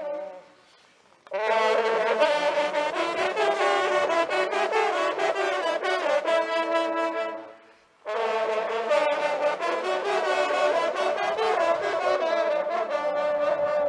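An ensemble of French hunting horns (trompes de chasse) playing a fanfare. One phrase fades out just after the start; the horns come back in about a second later, break off briefly a little past the middle, and play on to the end.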